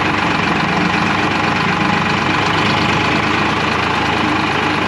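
Eicher 555 tractor's diesel engine running steadily with an even, fast throb.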